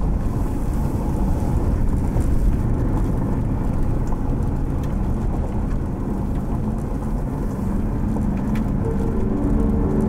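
A vehicle driving at speed: a steady low rumble of road and wind noise. A few steady pitched tones join near the end.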